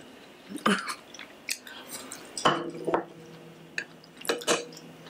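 Chopsticks clicking against a small bowl in a handful of sharp taps, with close-miked chewing between them. A low steady hum comes in about halfway through.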